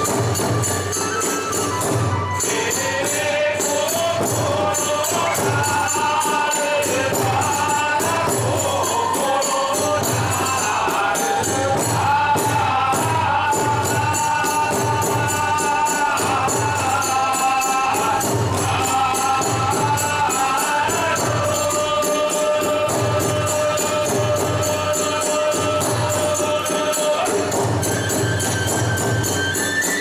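Kagura hayashi music: a drum beating a steady rhythm under continuous clashing of small hand cymbals, with a gliding melody above.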